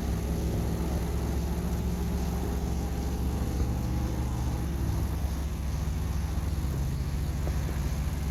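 A steady low hum from an engine running, with a slight shift in its pitch about five seconds in and no bangs.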